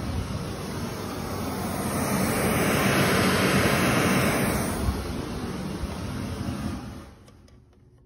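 Pink noise from a Martin Logan Motion FX surround speaker, driven through in-wall speaker cable by a Whirlwind Cab Driver battery-powered speaker tester: a steady, even hiss, loudest in the middle, fading away about seven seconds in. The noise coming through is the check that the cable run and speaker are connected with no breaks.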